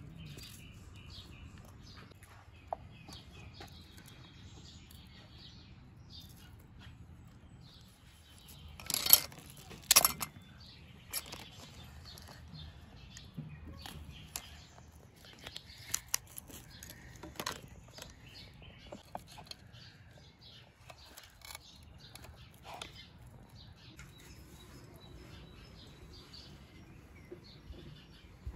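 Birds chirping amid scattered sharp clicks and knocks, with two louder knocks about nine and ten seconds in.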